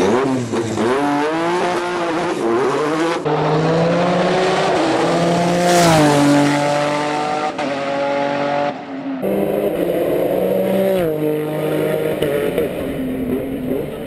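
Dacia Duster Pikes Peak race car with a Nissan GT-R twin-turbo V6, accelerating hard: the engine note climbs and drops several times as it shifts up through the gears.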